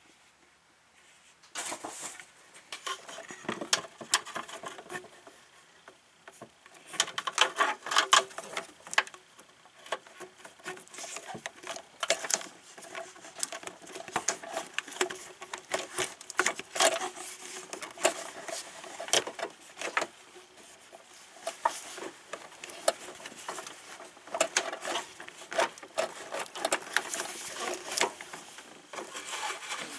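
Irregular clicks, taps and rubbing from hand work on an upper radiator hose and its clamp, starting about a second and a half in.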